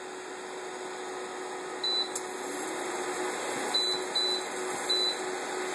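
Induction hob's touch-control panel giving four short high beeps as its buttons are pressed to set the heat, over the hob's steady hum.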